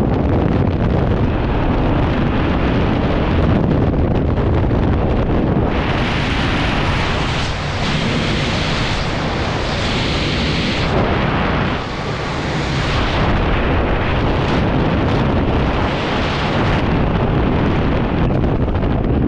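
Freefall airflow buffeting a GoPro's microphone during a skydive: a loud, steady wind roar whose hiss grows brighter for several seconds midway, then settles back.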